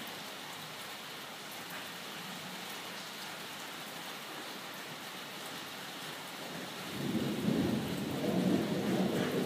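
Steady rain falling, then about seven seconds in a deep rumble of thunder swells and goes on.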